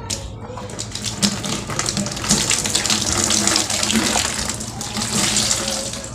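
Liquid running and splashing as a dirty motorcycle air cleaner element is washed, with small knocks of handling, getting louder about two seconds in.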